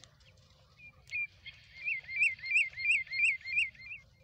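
An animal calling: a few faint high notes, then from about two seconds in a louder rapid series of about seven short, arching high notes, roughly three a second.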